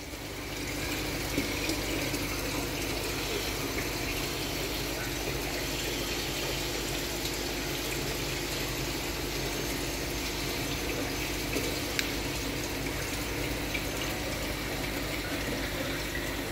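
Water running steadily as an aquarium is drained through a siphon hose, with a low steady hum underneath.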